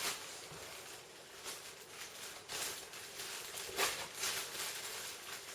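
Packaging being handled while a lawnmower box is opened: irregular rustling and scraping strokes of cardboard and plastic, with a few sharper crinkles about one and a half, two and a half and four seconds in.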